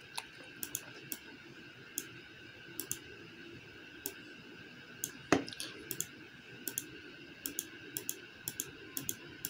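Computer mouse clicking at irregular intervals, several clicks coming in quick pairs like double-clicks, with a somewhat louder click about five seconds in. A faint steady whine runs underneath.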